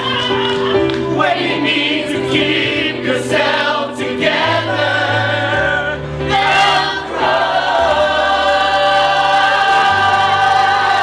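An improvised comedy song: several voices singing long, drawn-out notes over musical accompaniment, with held bass notes that change every second or two.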